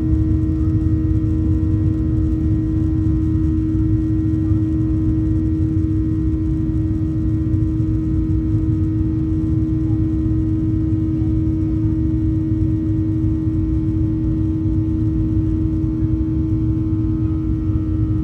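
Boeing 737-800 cabin noise heard from a window seat: the CFM56-7B engines' steady drone, with a strong even hum over a deep rumble that holds level throughout.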